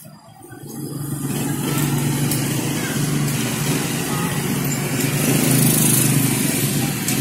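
Road traffic: a motor vehicle's engine running close by, a steady low hum with road noise that swells up about a second in and holds.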